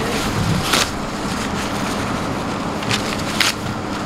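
Steady traffic and street noise, with a few short slurps through a drinking straw: one just under a second in and two around three seconds in.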